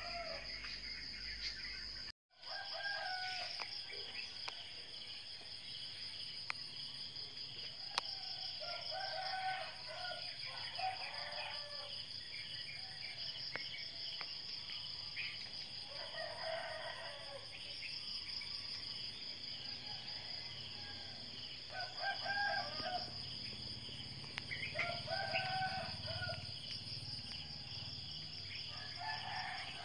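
A rooster crowing repeatedly, every few seconds, over a steady high-pitched insect drone. The sound cuts out briefly about two seconds in.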